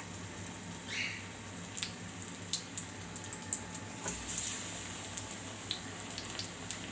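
Battered potato pakoras deep-frying in hot oil in a pan: a steady sizzle with scattered crackles and pops. About four seconds in, a fresh battered slice goes into the oil and the sizzling briefly flares up.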